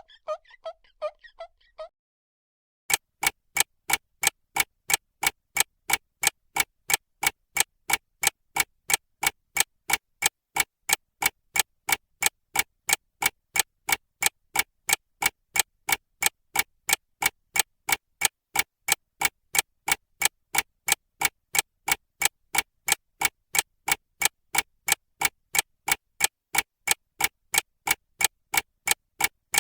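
A short tinkling music phrase ends about two seconds in. After a brief gap, a clock starts ticking, fast and even.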